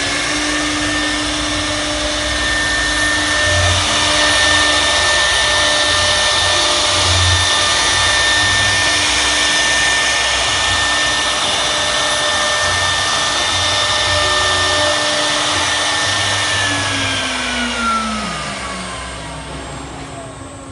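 CNC wood router spindle running at a steady high whine while its bit cuts shapes into a fibreboard sheet, over a steady rushing cutting noise. About four seconds before the end the spindle winds down, its whine falling in pitch as the sound fades.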